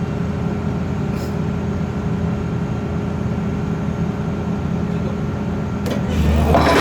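Pile driver rig's engine running steadily, with a low even hum; it grows louder and rougher near the end.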